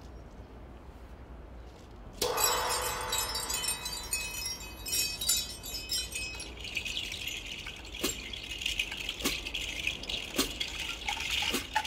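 Solo drum kit with added percussion. About two seconds in, struck metal rings out with many high chiming tones that slowly fade. From about the middle on, a high rattling hiss with scattered light taps joins.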